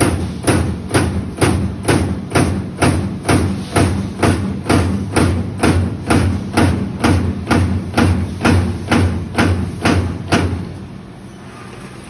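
Amada CNC turret punch press punching galvanized steel sheet: sharp, evenly spaced strikes, a little over two a second, over a steady low machine hum. The strikes stop near the end, leaving the hum.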